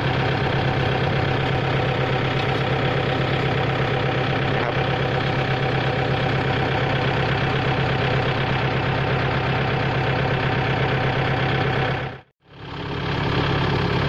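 Kubota L4708 tractor's four-cylinder diesel engine running steadily while it pulls a plow, heard from the driver's seat. The sound cuts out briefly near the end and comes back unchanged.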